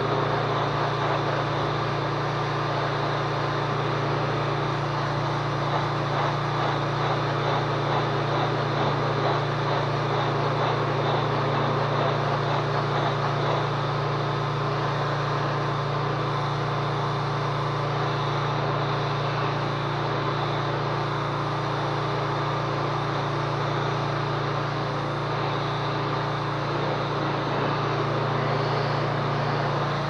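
Troy-Bilt 2800 PSI gas pressure washer, its 190cc OHV engine running steadily under load, with the hiss of the high-pressure water jet spraying against a garage door.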